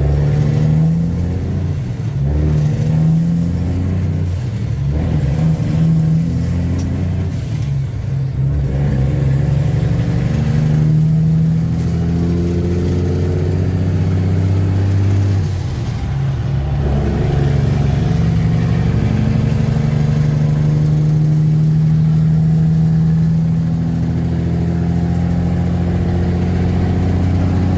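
Semi truck's diesel engine pulling away and accelerating, its pitch climbing and then dropping back a few times as it works up through the gears.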